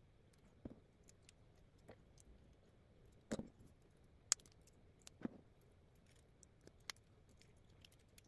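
Small plastic parts of a Bandai Mobility Joint Gundam figure being handled and pressed together: faint, scattered clicks and taps, the sharpest about four seconds in.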